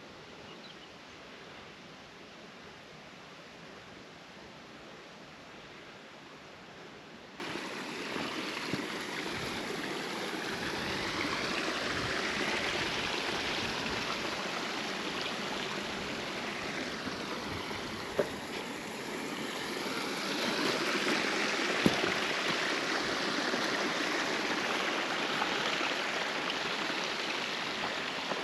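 River water rushing steadily, faint at first, then suddenly much louder and closer about seven seconds in. A couple of short clicks sound over it.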